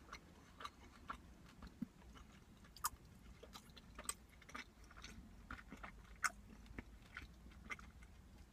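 Close-up chewing of a protein bar with a crunchy topping: faint, irregular crunches and wet mouth clicks.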